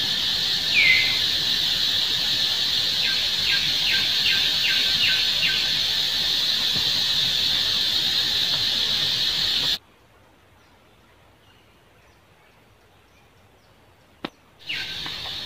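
A steady high-pitched insect drone with scattered short chirps and one brief falling squeal about a second in. About ten seconds in it cuts off suddenly to near silence, broken by a single click, and the drone comes back near the end.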